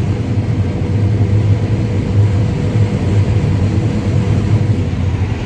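Combine harvester running steadily under load while harvesting corn: a constant low engine drone with a faint steady hum above it.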